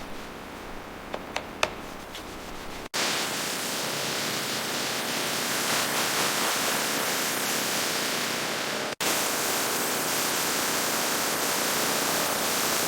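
A few light taps, then after an abrupt cut a steady, even hiss that carries on past a second brief dropout.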